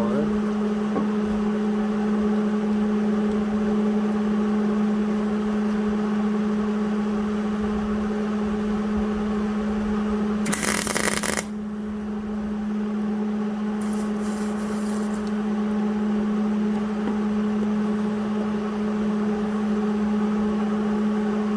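Steady low machine hum, with a short loud burst of hissing noise about halfway through and a fainter high hiss a few seconds later.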